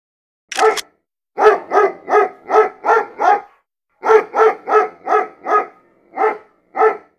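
A dog barking over and over at about three barks a second, in short runs with brief breaks, fourteen or so barks in all.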